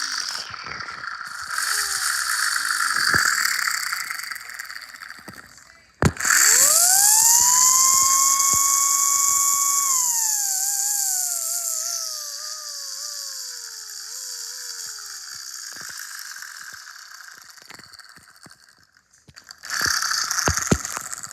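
Miniature 3D-printed model of a Chrysler air raid siren: a short spin-up that wails and dies away, then a longer spin-up to a high, steady wail held for about four seconds, which winds down in a stepped, falling wail. A rushing air hiss goes with it, with a short burst of hiss near the end.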